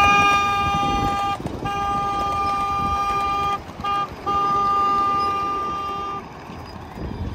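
Ride-on miniature diesel-outline locomotive's horn, a two-note chord sounded long, long, short, long: the grade-crossing signal. It stops about a second before the end.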